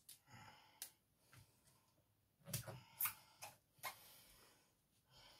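Paper die-cuts and stickers being handled and laid on a card: faint rustling of paper, with a quick run of light clicks and taps about halfway through.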